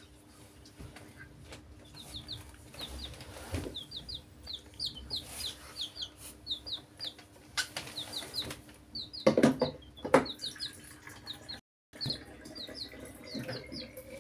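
Baby chicks peeping: short, high, falling chirps in quick runs of two or three, repeated throughout. A couple of louder knocks about nine and ten seconds in are the loudest sounds.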